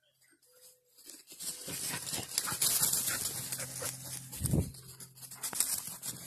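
Dogs scuffling and rustling through dry leaves and pine straw close to the microphone, a big black dog coming right up to it, starting about a second and a half in. One dull bump about four and a half seconds in.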